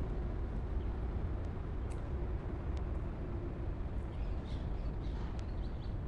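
Outdoor ambience: a steady low background rumble, with small birds chirping a few times from about four seconds in.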